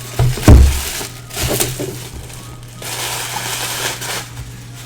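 Cardboard box being handled and shifted: a couple of loud knocks about half a second in and another around one and a half seconds, then a scraping, rustling slide lasting about a second.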